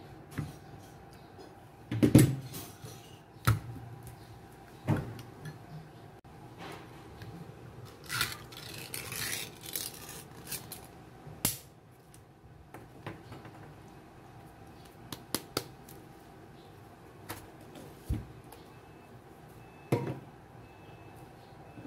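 Ring-pull Spam can being opened by hand: sharp clicks and knocks as the tab is lifted and the seal breaks, a scraping tear as the metal lid is peeled back, then a few knocks near the end as the meat is turned out onto a wooden cutting board.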